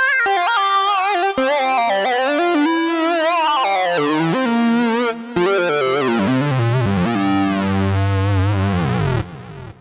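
Yamaha MODX M synthesizer playing a layered patch: wavering lead notes step downward over sweeping high tones, settling into a deep bass about seven seconds in, then the sound drops away near the end.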